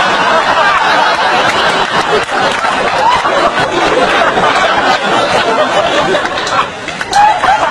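An audience laughing, many voices at once, dipping briefly near the end.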